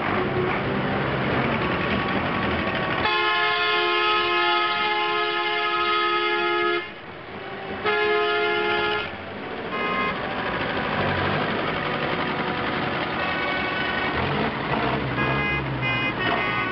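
Farm tractors rolling slowly past with their engines running. A long multi-note horn blast sounds about three seconds in, then a second, shorter blast a second later, and a few short toots near the end.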